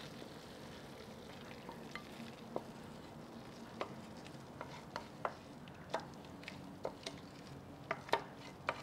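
Thick beef curry being scraped out of a frying pan into a ceramic bowl with a spoon: faint wet scraping over a low hiss, with light clicks of the spoon against the pan, more frequent in the second half.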